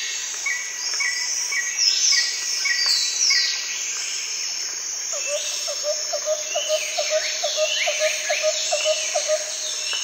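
Insects and birds: a steady high insect buzz under several bird calls. In the first few seconds there is a run of short repeated notes, then some falling whistled calls. From about halfway a series of quick, lower repeated notes comes in, about three a second.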